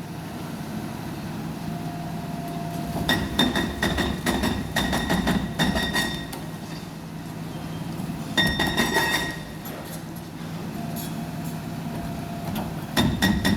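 Demolition excavator working a concrete building frame: bursts of rapid clattering knocks of concrete and metal, about three seconds in, about eight seconds in and again near the end, over the steady running of the machine's diesel engine.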